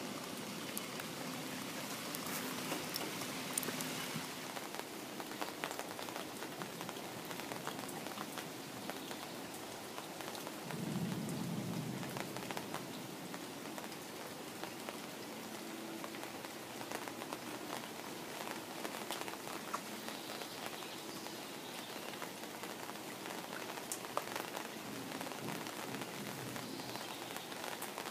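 Steady rain falling on a pond's surface and the leaves around it: an even hiss dotted with sharp individual drop ticks. A brief low rumble swells about eleven seconds in.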